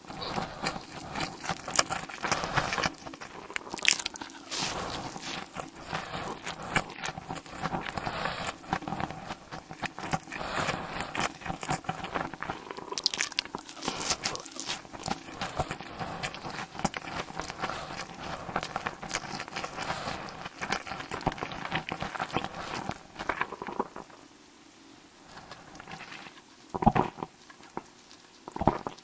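Close-miked ASMR eating: dense, continuous crunching bites and chewing, falling quieter near the end with a few separate louder mouth sounds.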